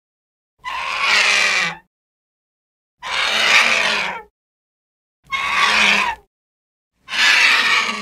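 Monster sound effect for a giant bird-like dinosaur: four harsh animal calls, each about a second long, with short silences between them.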